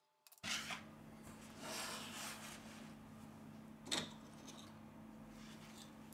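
Small handling noises from a smartphone being taken apart with hand tools: a few light clicks, a short scraping hiss, and one sharp click about four seconds in, over a low steady hum that comes in just under half a second in.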